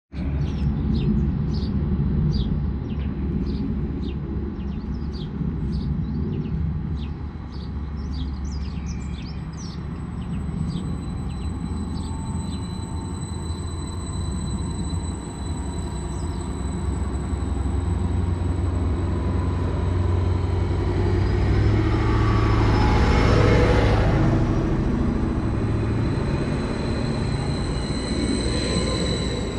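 Class 755 bi-mode multiple unit running on its diesel power packs as it moves slowly along the platform: a steady low rumble that swells to its loudest a little over twenty seconds in, with a rising whine. Short high chirps come and go over roughly the first ten seconds.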